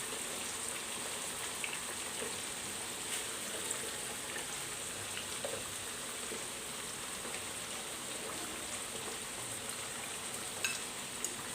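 Sliced potatoes and onions frying in hot oil in pans: a steady sizzle, with a few short sharp clicks, the loudest near the end.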